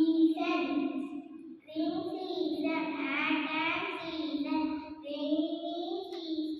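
A young boy singing solo into a microphone, in phrases with long held notes, the longest wavering in pitch in the middle.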